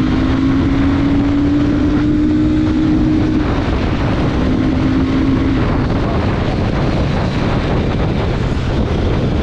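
Heavy wind buffeting on the microphone of a motorcycle ridden at high speed, over the steady drone of the Royal Enfield Super Meteor 650's parallel-twin engine, which fades under the wind about halfway through.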